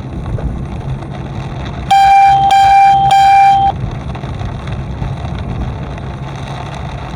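Vehicle horn honking three times in quick succession, each honk a single steady tone about half a second long, over the steady rumble of the car driving.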